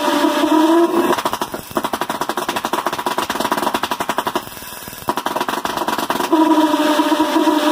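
Small propane-fuelled Tesla-valve pulse jet running with a steady buzzing tone. About a second in it breaks into rapid, irregular popping, sputtering for about five seconds, then settles back into the steady buzz near the end.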